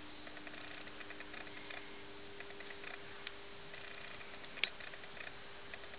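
Faint irregular ticking and clicking over a steady low hum, with two sharp clicks, the first about three seconds in and the second, louder, about a second and a half later.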